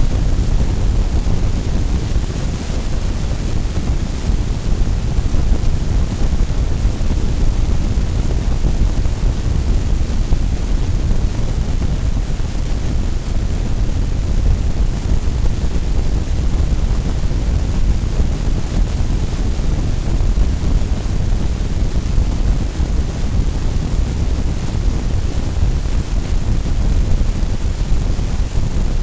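Steady low rumble of road and wind noise inside a car cruising at highway speed.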